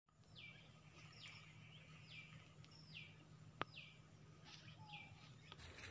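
A bird calling over and over, faint: each call a short note falling in pitch, about one a second. A single sharp click a little past halfway.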